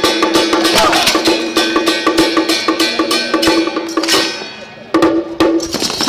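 Song Jiang Zhen troupe's percussion accompaniment: fast, dense strikes of drum and cymbals over a steady ringing tone. It briefly drops away just before the fifth second, then comes back in.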